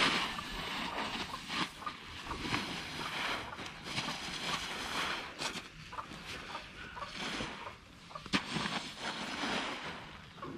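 Rake dragged through a layer of drying unhusked rice on a tarp: a dry rustling and scraping that comes in irregular strokes as the grain is turned over.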